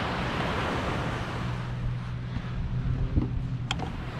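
Steady low engine drone with wind on the microphone, and a couple of sharp clicks near the end.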